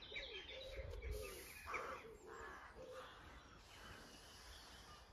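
Faint outdoor birdsong: a low, repeated cooing through the first three seconds, with higher chirps in the first second and a harsh, caw-like call about two seconds in.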